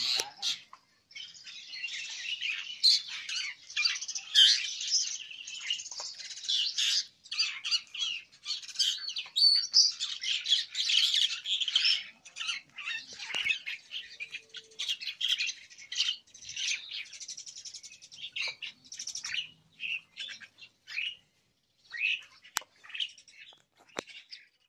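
A dense chorus of many caged starlings, Asian pied starlings and black-winged mynas, chattering and calling at once. After the middle it thins to scattered separate calls, with a couple of sharp clicks near the end.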